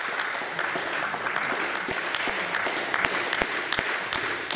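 Steady noisy background of a table tennis hall, with scattered sharp clicks of table tennis balls hitting tables and bats and a few louder knocks in the second half.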